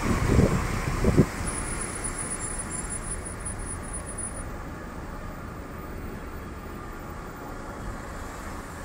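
Road and traffic noise from inside a moving car: a steady hiss of tyres and surrounding vehicles, with a few low thumps in the first second or so. The noise eases slightly toward the end.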